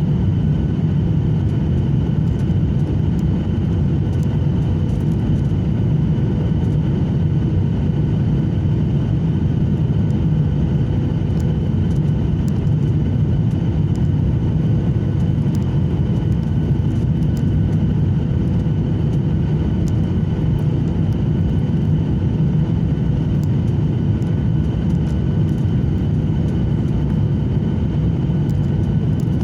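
Jet airliner cabin noise in flight: engines and airflow make a steady low rumble with a faint steady whine above it.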